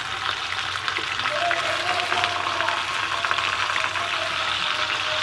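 Chicken quarters shallow-frying in hot oil in a frying pan: a steady, dense sizzle full of fine crackles.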